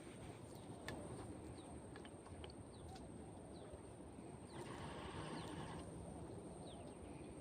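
Faint outdoor background noise, with a few short high chirps and light clicks scattered through it.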